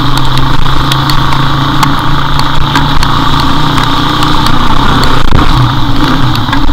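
Motorcycle engine running steadily at low speed, heard from a camera on the moving bike over wind noise, with scattered sharp ticks.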